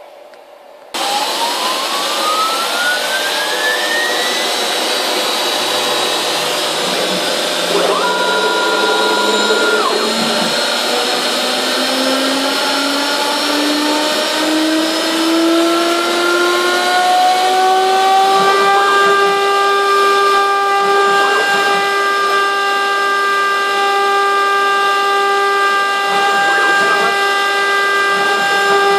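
Loud steady machine noise starts suddenly about a second in, and the CNC router's spindle motor whines as it spins up: the whine climbs slowly in pitch for about seventeen seconds, then holds steady at full speed. A brief steady two-note tone sounds around eight seconds in.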